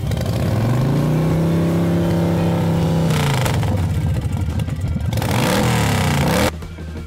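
Recorded engine sound effect from a toy vehicle, revving up, holding high for about two seconds and dropping back, then revving up again before cutting off abruptly near the end.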